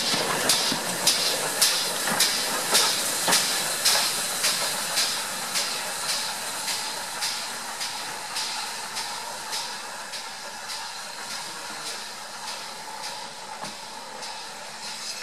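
Steam locomotive exhaust beats, about two chuffs a second at a steady pace, growing fainter as the train pulls away.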